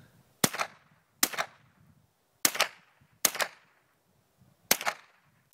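Rifle shots from an AR-15 fitted with a CMMG .22 LR conversion kit, five sharp cracks in all. They come as two quick pairs, each pair about 0.8 s apart, then a fifth shot near the end: double taps on targets.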